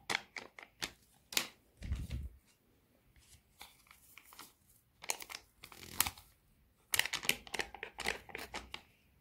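Small paper powder sachets crinkling and being flicked as their powder is shaken out, in short bursts of crackling and clicks. A low thump comes about two seconds in.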